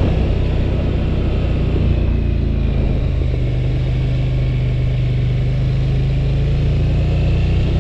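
Engine of a 2011 Polaris Sportsman 850 Touring ATV running steadily as the machine rolls slowly, with the engine note dropping slightly about two to three seconds in and picking back up near the end.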